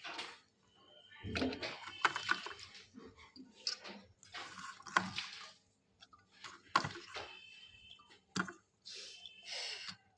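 Washed vegetables, chicken and lentils being tipped into a pressure cooker: wet splashes, clinks and scrapes in short, irregular bursts.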